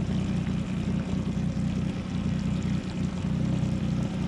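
Yamaha 40 outboard motor running steadily at a low, even pitch, pushing the fishing boat along at trolling speed.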